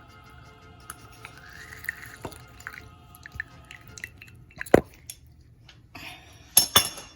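Lemon juice dripping from a squeezed lemon into a cup of tea, with scattered small ticks and a few sharp clinks, the loudest near the end.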